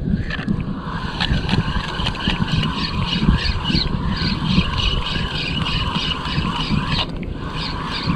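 A Daiwa Crossfire LT 1000 spinning reel being cranked to retrieve a lure: a steady whirring with about three to four pulses a second, which stops briefly about seven seconds in, then resumes. A low rush of wind and water runs underneath.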